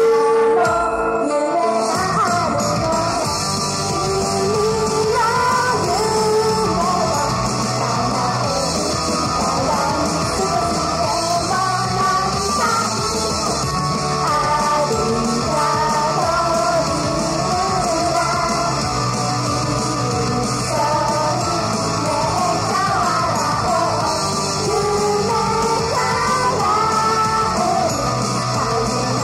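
Japanese idol group singing live over loud, uptempo pop-rock music. The opening two seconds or so are sparser, then the full arrangement with a steady bass comes in.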